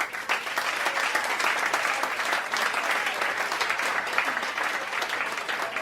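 Audience applause: dense clapping from many hands at a steady level.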